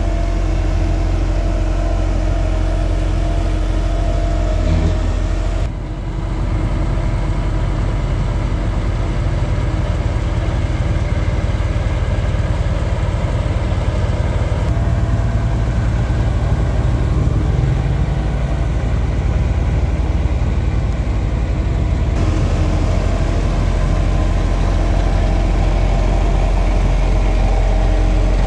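Diesel engines of heavy earthmoving machines running steadily, a low, even engine drone. It starts as a Hamm 3410 single-drum road roller. About six seconds in it cuts to a Komatsu crawler bulldozer, and near the end back to the roller.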